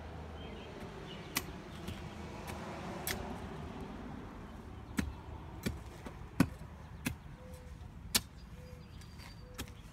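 A digging tool chopping into the soil and roots, about eight sharp, irregular strikes, the loudest a little past the middle.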